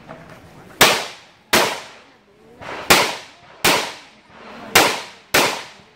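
Glock 17 Gen 4 9mm pistol firing six shots in three quick pairs, the two shots of each pair well under a second apart. Each shot has a short echo trailing off after it.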